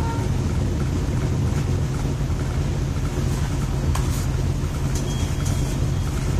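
Steady hum of an electric room fan, with a few soft rustles as the sauna belt's fabric is shifted around the waist.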